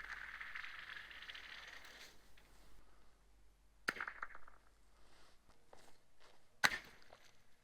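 Ice on a frozen stream: a scraping crunch that fades out, then two sharp cracking knocks about three seconds apart, with faint ticks between.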